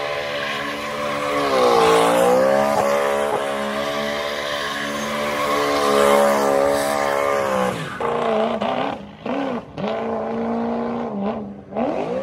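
A car engine held at high revs while the car spins donuts, with tyres squealing over a steady hiss. After about eight seconds the throttle lifts and the engine is blipped in several short rising-and-falling bursts with brief gaps between them.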